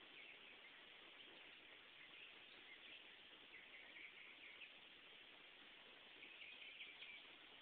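Near silence with faint, scattered bird chirps over a quiet outdoor background hiss.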